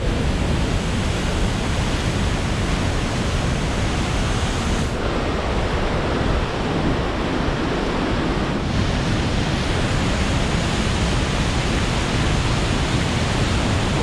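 Steady, even roar of rushing water from Vernal Fall and the Merced River cascading below it.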